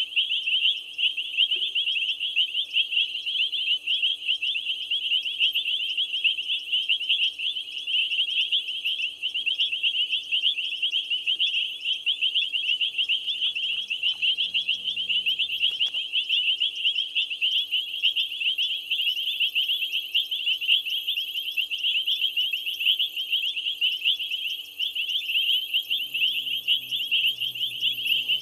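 Dense night chorus of many small callers at a waterside, countless rapid high-pitched chirps overlapping into one steady shrill wall. A faint low hum comes in near the end.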